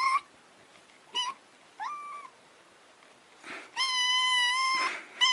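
Grey-and-white kitten meowing: a few short high meows, then one long, steady meow of about a second near the end.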